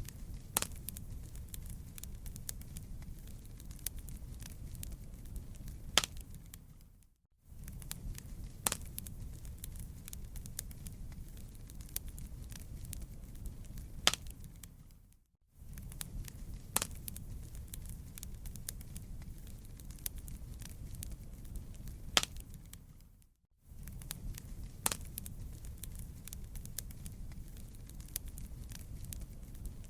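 Wood fire crackling, with scattered sharp pops over a low rumble. The sound fades out to a brief silence about every eight seconds and comes back in, the same stretch of crackling repeating each time.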